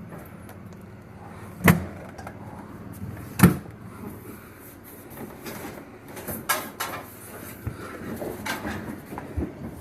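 Knocks and bumps of a refrigerator being handled on a hand truck: two sharp, loud knocks about two seconds apart, then lighter knocks and small clatter.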